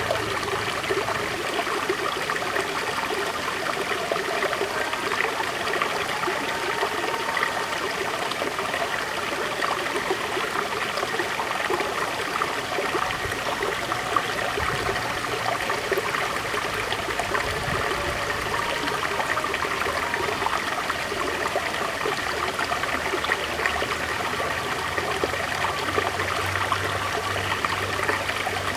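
River water flowing over stones, a steady babbling and trickling rush.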